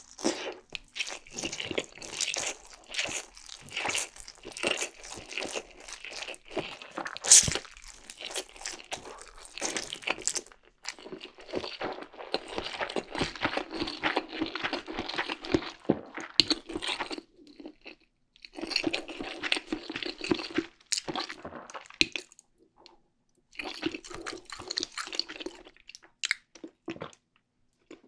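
Close-up mouth sounds of a person slurping and chewing Indomie Mi Goreng instant fried noodles, dense with sharp clicks at first, then in bursts with short pauses.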